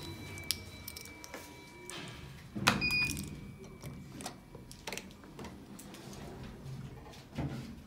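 Elevator car: a short beep and clunk as buttons are pressed about three seconds in, then the sliding doors closing, with scattered clicks and knocks.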